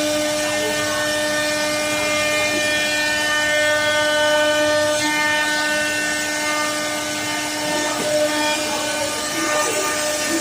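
CNC router spindle running at speed with a steady high whine while its bit cuts into wood, with a rushing noise of cutting under it.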